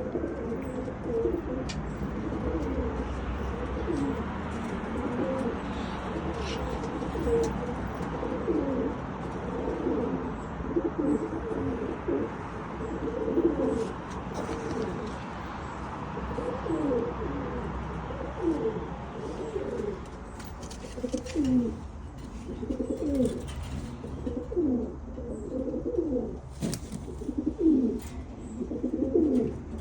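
Many domestic pigeons cooing together, a dense unbroken chorus of low, overlapping coos, with a few sharp clicks scattered through it.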